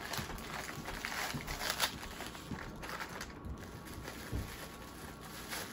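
Clear plastic bag crinkling and rustling as a small vinyl figure is worked out of it, busiest in the first couple of seconds, then quieter.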